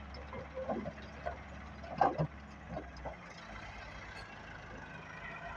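Stones and rock tipped from a wheeled excavator's bucket into a tractor trolley, clattering onto the load in a handful of knocks, the loudest about two seconds in. A steady low engine hum runs underneath.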